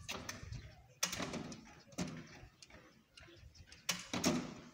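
Aluminium bi-fold glass door panels being pushed shut by hand, with a few sharp clicks and knocks from the panels and their hardware: about a second in, about two seconds in, and a pair near the end.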